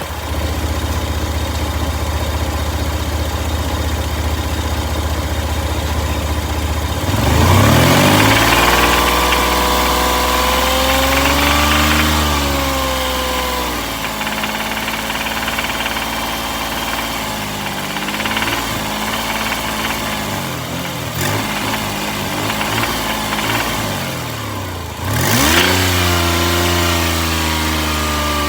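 Toyota engine idling, then revved up and let fall back several times, with a knocking rattle that the owner labels rod knock.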